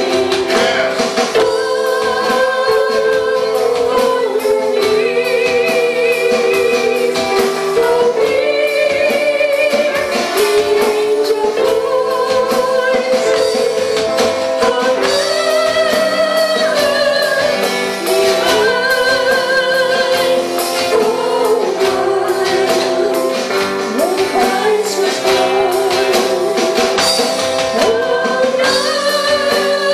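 Live church worship band: women's voices singing a gospel-style song over acoustic guitar, keyboard and drum kit, with a steady beat.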